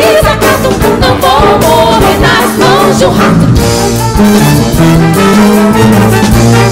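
A big wind-and-brass orchestra with saxophones, trombones and trumpets playing live. Women's voices sing a wavering line over the band for the first few seconds. From about four seconds in, held brass chords over low bass notes take over.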